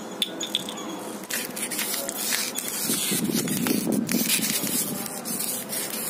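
Plastic water bottles crinkling and crackling as they are twisted tight, squeezing the air inside before the cap is popped off. The crackling grows louder about a second in.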